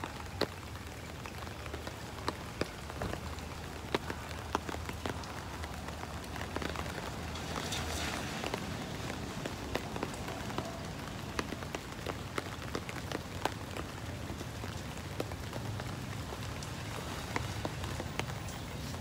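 Steady rain falling, with many sharp drip ticks scattered through it and a low steady rumble underneath. The hiss swells briefly about eight seconds in.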